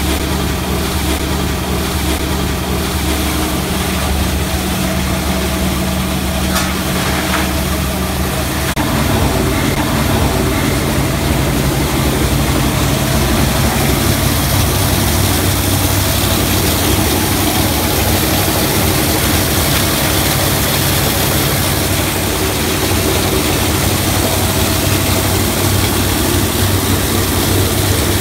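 Belt-driven crusher of an aluminum-plastic separating plant running steadily, its electric motor humming under the noise of the machine grinding aluminum-plastic scrap into flakes. The noise grows fuller and a little louder about nine seconds in.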